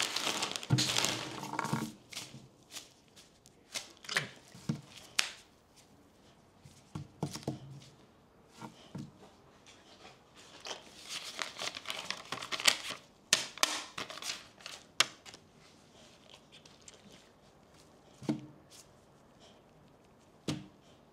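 A plastic snack bag of pork rinds crinkling and rustling as rubber-gloved hands handle and crumple it, mixed with crunching of the rinds. It comes in irregular bursts, busiest at the start and again around the middle, then only a few scattered crackles.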